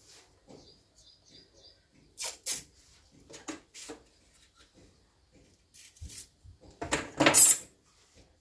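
Tools and parts being handled on a workbench: scattered light clicks and knocks, two sharper clacks a couple of seconds in, and a louder scraping rustle about seven seconds in.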